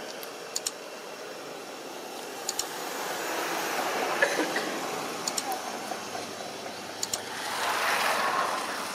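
Outdoor background noise, an even rushing hiss that swells and fades twice, like passing traffic or wind, with a few sharp clicks, some in quick pairs.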